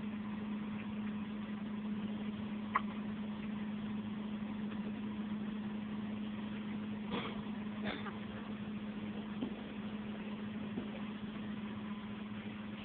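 A steady low hum with one fixed pitch, with a single sharp click about three seconds in and two short, sharp sounds close together about seven seconds in.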